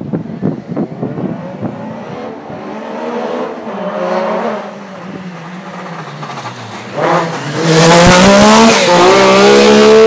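Rally car running hard at high revs, with a series of sharp pops at first. Its engine builds as it approaches and is loudest in the last two seconds as the car passes close by at full throttle.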